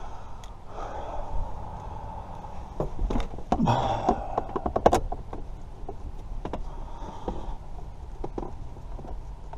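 Small parts and tools being handled during reassembly: scattered light clicks and knocks, a short grunt about three and a half seconds in, and a sharper click near the middle, over a faint steady hum.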